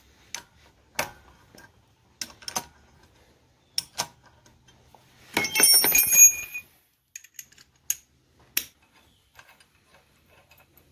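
Hand tools and steel hardware on a minibike's torque converter pulley clicking and tapping now and then. A short burst of ringing metal clatter comes about five and a half seconds in.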